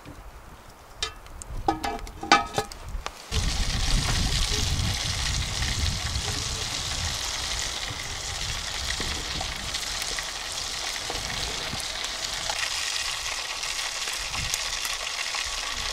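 Food sizzling over an open campfire, a steady hiss that starts abruptly about three seconds in, with a low rumble underneath at first. A few light metallic clinks come before it.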